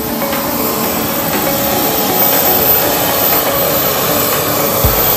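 A business jet's auxiliary power unit (APU) running: a loud, steady jet rush and whine that grows somewhat louder over the first couple of seconds.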